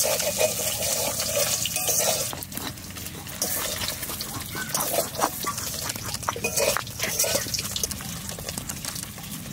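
Raw rice grains being crushed with a stone pestle in a stone mortar: irregular knocks of stone on stone with gritty crunching of the grains.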